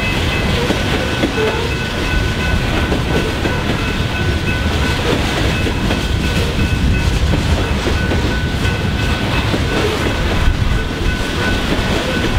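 Loaded coal hopper cars of a coal unit train rolling past at a grade crossing: a steady, dense rumble of steel wheels on rail. A grade-crossing bell rings over it, heard as thin high tones that come and go.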